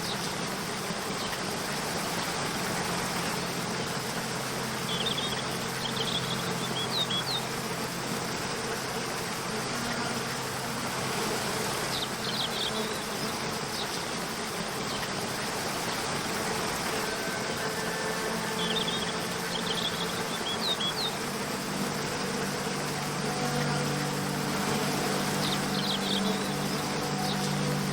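Steady rush of waterfall water, with short high bird chirps every few seconds and a soft low sustained drone of background music that swells near the end.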